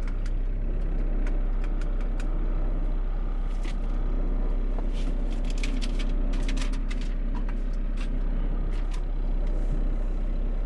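Truck engine and road noise running steadily, heard from inside the cab, with a low hum and scattered light clicks and rattles.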